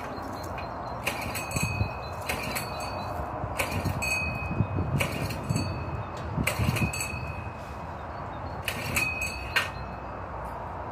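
Irregular light metallic clinks, each ringing briefly at the same high pitch, in small clusters over a steady background hiss.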